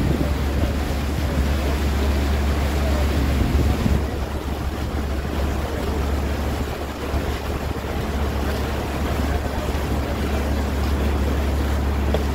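Boat engine running steadily under way, a constant low drone, with wind on the microphone and water rushing past the hull.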